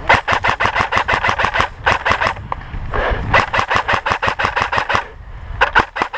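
Airsoft electric rifle (AEG) firing on full auto in several bursts of rapid, evenly spaced clicking shots, about a dozen a second, the last burst short.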